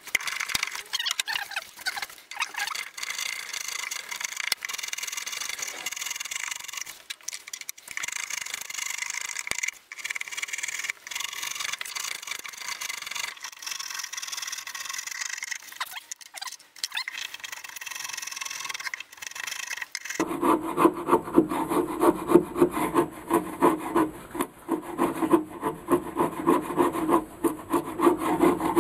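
Hand rasp and file strokes shaving a softwood block: a long run of quick, hissy scraping strokes, then about two-thirds of the way in heavier, lower rasping strokes at roughly two a second.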